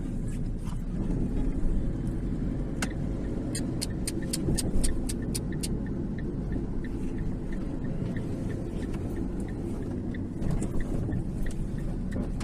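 Steady low rumble of a car on the move. About three seconds in comes a quick run of a dozen or so sharp clicks, a few per second, that stops after about two and a half seconds.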